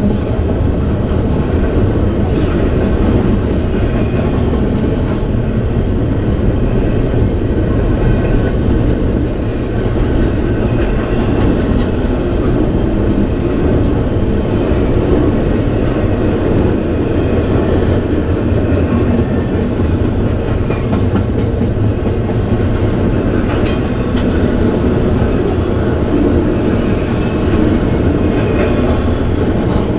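CSX double-stack intermodal freight train passing: a steady rumble of steel wheels on rail, with light scattered clicking as the cars roll by.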